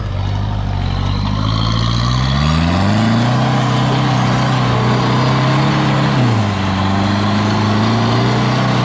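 4x4's engine revving up about two seconds in and holding steady revs under load as it crawls up a rocky obstacle, easing off briefly after about six seconds, then holding again.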